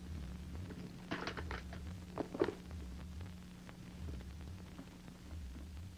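Near-quiet pause on an old television film soundtrack: a steady low electrical hum, with a few faint clicks about one to two and a half seconds in.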